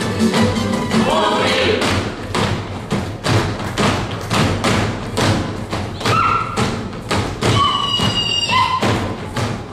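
Dancers' boots stamping in rhythm on a wooden stage, about three stamps a second, in a Baranja folk circle dance (kolo), over a folk string band playing.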